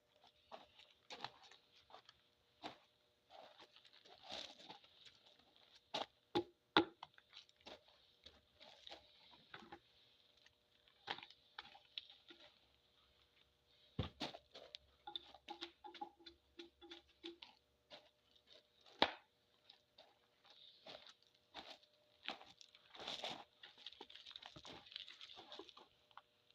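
Bark being stripped from a cedar log with a hatchet: quiet, irregular taps and short scrapes, with a few sharper knocks among them.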